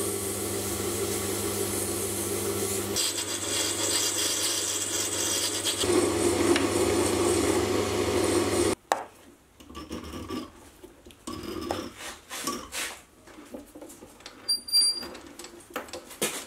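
Metal lathe running with a steady hum while abrasive cloth and then a file rasp against a spinning cast-brass hammer face. About nine seconds in the lathe sound stops abruptly, leaving light clicks and scrapes of the threaded brass face and steel hammer part being handled and screwed together, with a brief metallic clink near the end.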